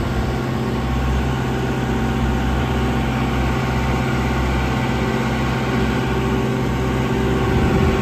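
A 2016 JCB 3CX backhoe loader's four-cylinder diesel engine running steadily at low revs.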